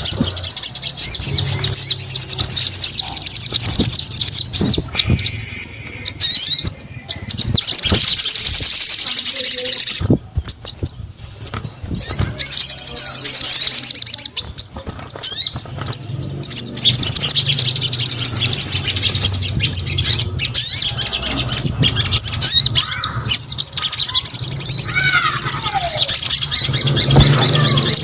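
Sogon bird singing vigorously in rapid, high twittering phrases, with a couple of short pauses and a falling whistle near the end.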